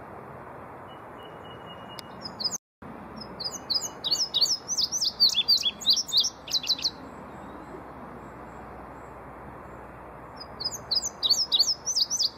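Male indigo bunting singing: two runs of quick, high, slurred notes, the first starting about three seconds in and the second near the end, over a steady low hiss.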